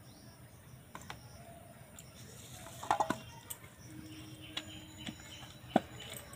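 Light knocks and clatters of utensils being handled and set down on the floor: a steel grater laid on a bamboo tray and a boti cutter on its wooden base. The loudest cluster comes about three seconds in, with a single sharp knock near the end.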